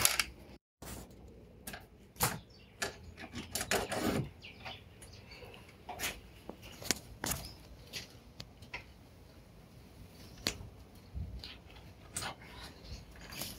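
Irregular clicks and knocks, a few to a couple of seconds apart, over faint background noise.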